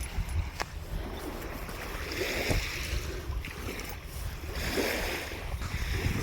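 Wind rumbling on a phone's microphone, with two brief swells of hiss about two and a half seconds apart.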